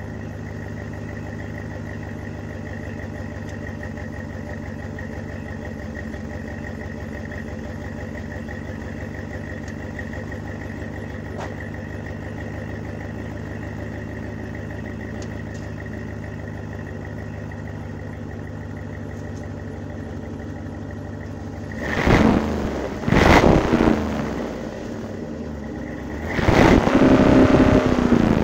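Cadillac Escalade ESV exhaust through a Flowmaster Super 44 muffler, heard at the tailpipe, idling steadily. A little over two-thirds of the way through it is blipped in two quick revs, then given one longer rev near the end.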